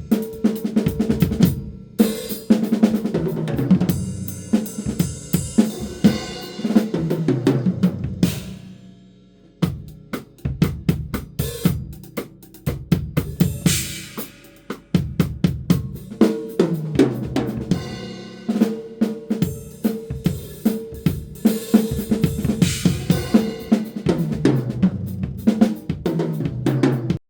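Acoustic drum kit played through a phone's microphone: kick, snare and hi-hat grooves broken by tom fills that step down in pitch from high toms to floor tom, with cymbal crashes. There is a short lull about a third of the way in where the ringing dies away before playing resumes.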